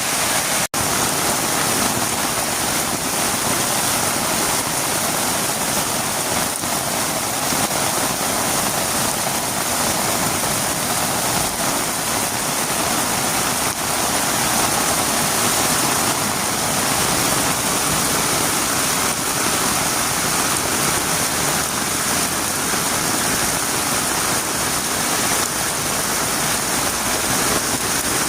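Heavy rain falling steadily on a road, a dense even hiss, broken by a momentary dropout less than a second in.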